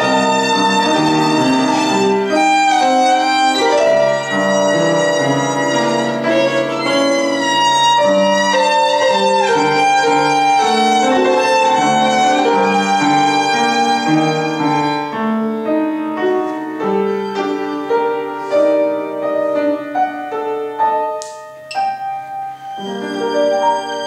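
Violin playing a melody over upright piano accompaniment. About two-thirds of the way through, the music turns quieter and sparser, with separate short notes, before a held note near the end.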